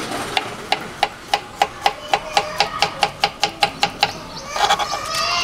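Kitchen knife slicing a banana into rounds on a plastic cutting board: a quick run of sharp taps, about four a second, as the blade hits the board with each cut, stopping about four seconds in.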